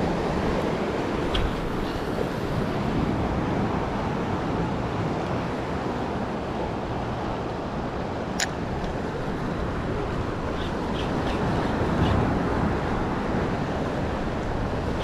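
Steady wind rushing over the microphone together with surf breaking on choppy water, with a few faint ticks and one sharp click about eight seconds in.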